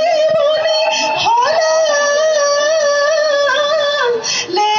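A high voice sings a Bihu song in long held notes. The pitch steps up about one and a half seconds in, dips near the end, then jumps up again.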